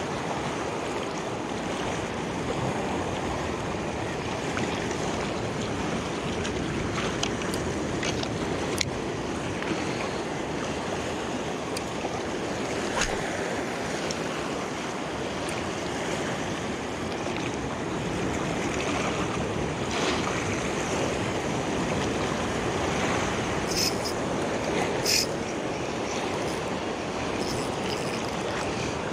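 Sea waves washing steadily at the shore, with a few short clicks here and there, two of them close together near the end.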